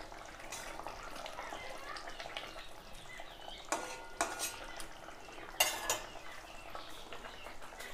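A metal spatula stirs and scrapes through a simmering fish curry in a metal kadai, over the faint bubbling of the gravy. Between about three and a half and six seconds in come a few sharp clinks of the spatula against the pan.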